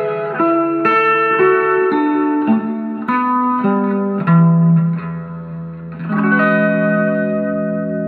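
Guitar music with effects and reverb: a phrase of single plucked notes stepping down in pitch, then a chord struck about six seconds in and left ringing.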